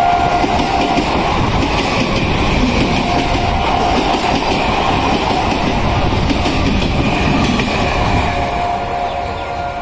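Suburban electric multiple unit train running along a station platform, its wheels clattering over the rails with a steady tone that comes and goes.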